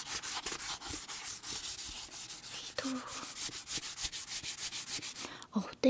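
Korean exfoliating scrub towel (ttaemiri towel) rubbed in quick, even back-and-forth scrubbing strokes. The strokes stop shortly before the end.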